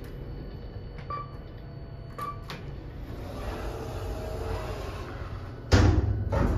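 Kone MonoSpace elevator car buttons being pressed: two clicks, each answered by a short beep, about one and two seconds in, over a steady low hum. A loud thump comes near the end.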